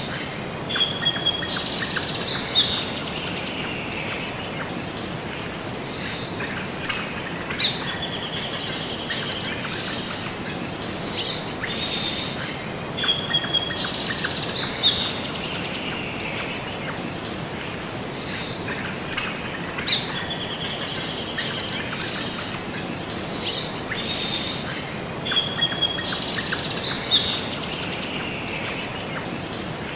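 Small birds chirping and trilling over a steady hiss, the same run of calls recurring about every twelve seconds, like a looped birdsong recording.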